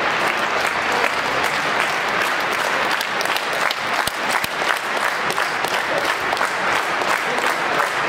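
Stadium crowd clapping steadily, a dense patter of many hands with sharper single claps standing out.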